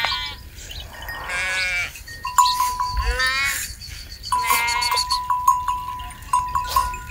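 Sheep bleating, about four calls spaced roughly a second apart, over a steady high ringing tone broken by regular clinks.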